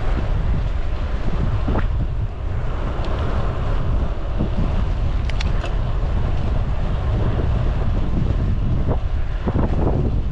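Wind buffeting the microphone on a moving bicycle, a loud steady rumble, with a couple of brief clicks about five seconds in.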